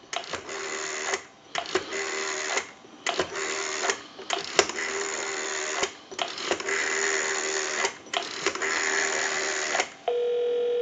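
North Electric Galion TP-6-A rotary telephone dialing a number: six spells of dial pulses, each about a second of clicking with a rough hiss and separated by short pauses, heard through a line pickup. About ten seconds in a steady ringback tone starts as the call goes through.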